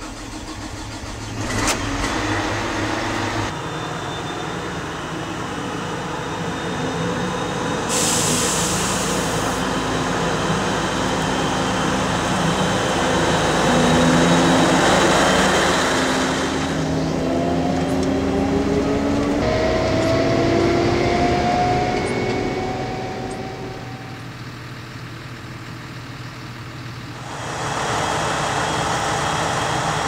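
Heavy diesel engines in a run of cut-together clips: an engine is started by key at the start, then a Claas Jaguar 940 forage harvester's engine runs and revs, its pitch rising and falling, with abrupt changes in sound at each cut.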